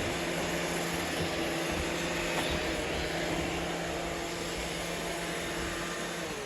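Several robot vacuum cleaners running at once: a steady motor and suction hum with a low drone.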